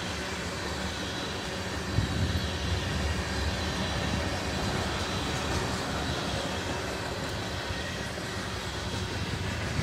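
Freight train cars (tank cars, then flatcars and gondolas) rolling past on steel rails: a steady rumble and rattle of wheels on track, growing louder about two seconds in.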